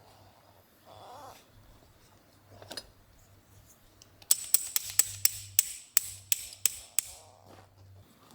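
Camping gear being handled: a few soft rustles, then a quick run of about a dozen sharp taps or clicks over two to three seconds in the second half.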